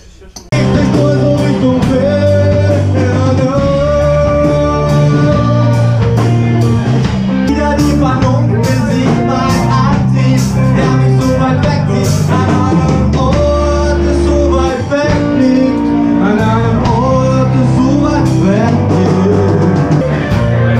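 Rock music with singing and electric guitar over a steady beat, starting abruptly about half a second in.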